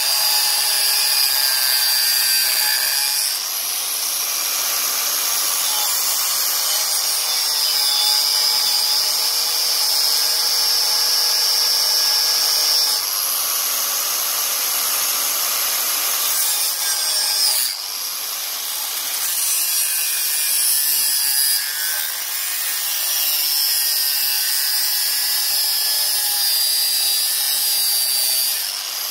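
Angle grinder with an abrasive cut-off disc cutting through the steel pipe of a motorcycle exhaust: a continuous high whine and grinding. Its pitch shifts and its level dips briefly a few times.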